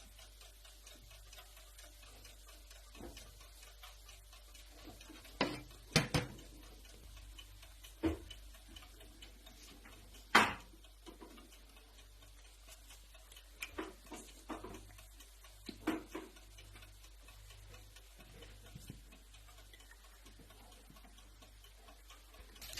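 Irregular light clicks and knocks of kitchen work at a donut maker, about ten in all, the sharpest around a quarter and half way through, over a faint steady low hum.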